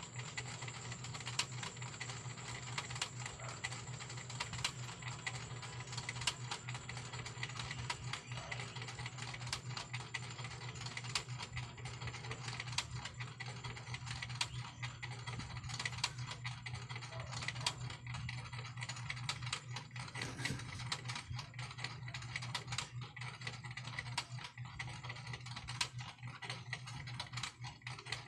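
Dense, irregular clicks and light rubbing from a rough black stone being handled and turned in cotton-gloved fingers close to the microphone, over a steady low hum.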